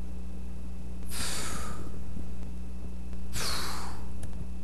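Breathy smoking sounds: two hissy drags on a joint, each just under a second long and about two seconds apart, over a low steady hum.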